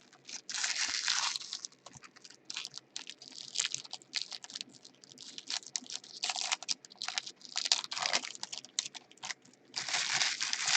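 Trading-card pack wrappers crinkling and tearing while cards are handled, in irregular bursts of rustling with many small clicks.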